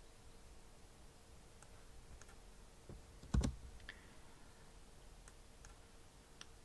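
A few faint, scattered computer clicks from mouse and keys, about seven in all. A heavier click with a low thump comes about three and a half seconds in, over a faint steady electrical hum.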